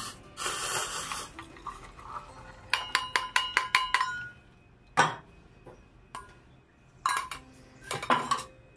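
Chai poured from a steel pan through a steel tea strainer into a steel mug: a short pouring rush, then a quick run of about eight ringing metal taps as the strainer is knocked against the mug. A single sharp knock and two more brief clusters of steel clinks follow.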